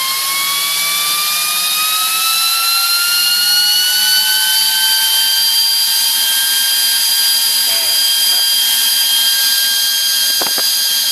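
Delta PFR0812XHE 80 mm brushless DC fan running at about 12.6 V: a loud high whine over a rush of air. The whine rises in pitch for the first few seconds, then holds steady at full speed. A brief knock comes near the end.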